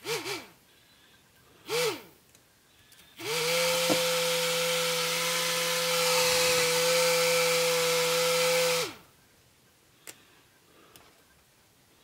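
Small DC hobby motor with a plastic propeller, run from a USB charger through a homemade micro USB socket. It spins up twice briefly in the first two seconds, then runs steadily for about six seconds with a high whine and airy fan noise, and cuts off suddenly.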